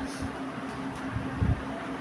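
Steady hum of a cooling fan, with a short low thump about one and a half seconds in.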